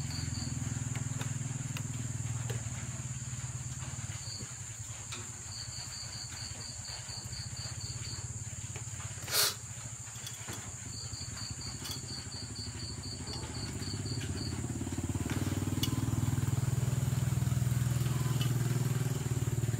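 A steady low engine rumble that grows louder in the last few seconds, with a cricket chirping in short trains of rapid pulses over a thin steady high whine. There is one sharp knock about nine seconds in.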